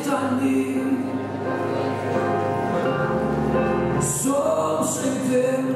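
Slow performance music: held chords with a singing voice that comes in more clearly about four seconds in.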